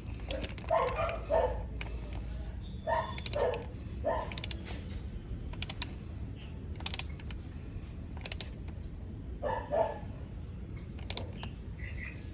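A dog barking in several short bursts, around one, three and four seconds in and again about ten seconds in, with sharp clicks and knocks in between.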